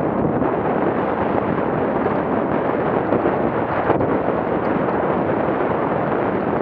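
Mountain bike rolling fast down a loose, rocky gravel trail, heard through an action camera: a steady rush of wind buffeting the microphone mixed with tyre and gravel noise and the bike rattling over stones.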